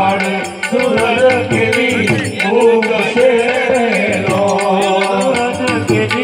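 Devotional music: a singing voice with a wavering melody over percussion that keeps a steady beat of sharp, regular strikes.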